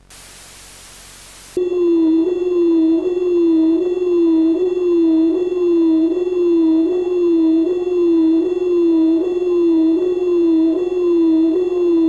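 A short burst of static, then an emergency-alert siren tone: a loud, warbling pitch that rises and falls a little more than once a second, with steady high tones ringing above it.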